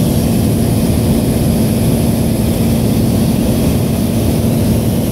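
Light aircraft's piston engine and propeller running steadily in cruise, heard from inside the cabin as a constant low drone with the rush of air around the airframe.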